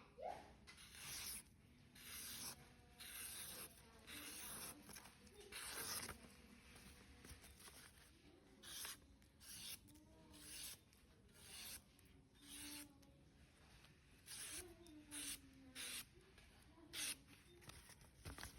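Victorinox knife blade being sharpened, rasping faintly in repeated strokes across a sharpener, roughly one stroke a second, with a pause of about two seconds past the middle.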